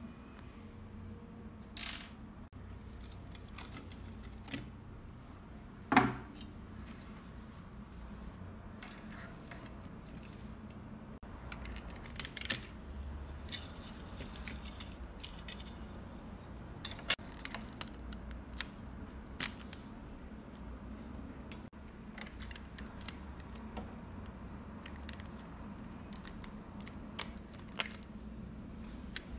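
Small clicks and taps of a scale-model Ford F-150 pickup's plastic chassis, wheels and axles being taken apart by hand on a wooden tabletop, with one louder knock about six seconds in.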